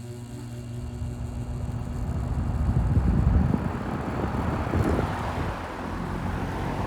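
Vintage Eskimo box fan motor starting up, heard close to the motor: a steady electrical hum with a rush of air that builds as the blades spin up, peaks about three seconds in, then settles to a steady run. The buzz is louder than usual, which the owner puts down to loose motor laminations.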